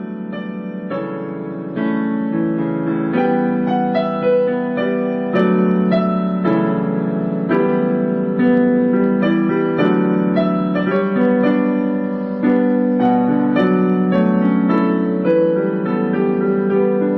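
Piano music: a gentle melody of struck notes over sustained chords, played at a steady, flowing pace.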